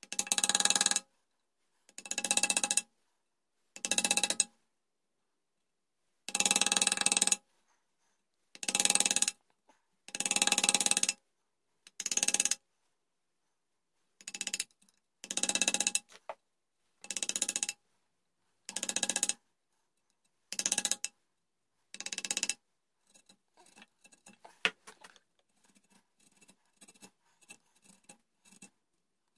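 Hand chisel paring the wooden stock of a flintlock long rifle at the barrel end: about thirteen strokes, each a loud scrape of about a second with a pitched ring to it and a short pause between. After about 22 seconds the strokes stop and only light scattered ticks and scrapes remain.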